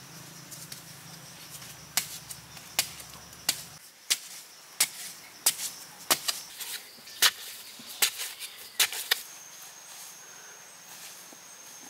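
Repeated sharp strikes of a long-handled digging blade chopping into hard clay soil, about a dozen blows, roughly one every half to three-quarters of a second. The strikes stop near the end, where a steady high-pitched tone comes in.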